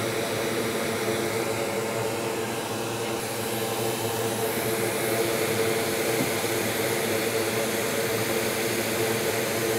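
Steady whirring hum of an electric blower or fan at a soldering bench, running evenly with a faint constant drone in it.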